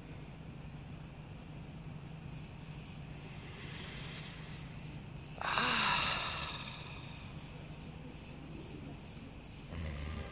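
Insects shrilling steadily, with a regular pulsing beat in their high buzz. About five and a half seconds in, a louder rushing noise rises suddenly and fades away over a couple of seconds.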